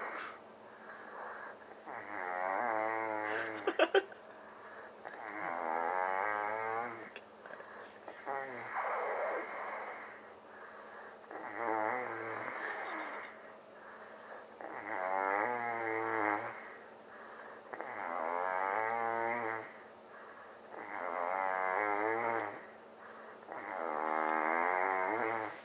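A man snoring in a steady rhythm, about eight snores, one roughly every three seconds, each lasting about a second and a half. A couple of sharp clicks come just before the four-second mark.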